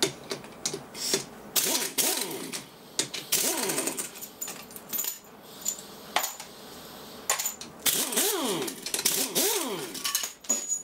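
Pneumatic impact wrench run in several short bursts, its pitch rising and falling as it spins up and winds down on the assembly's bolts. Loose steel parts clink and clatter on the steel workbench between the bursts.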